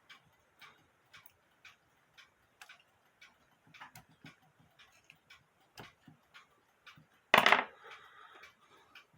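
Antique mechanical alarm clock movement ticking steadily, about three ticks a second. About seven seconds in there is one loud knock, followed by a brief rustle.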